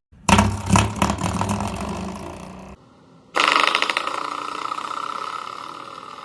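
Door-stop spring twanged twice. A low, fluttering boing is flicked again just under a second in and dies away, then a higher-pitched boing starts about three seconds in and fades out slowly.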